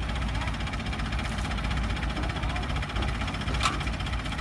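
Farm machinery's diesel engine running steadily with a low rumble, with a single sharp click about three and a half seconds in.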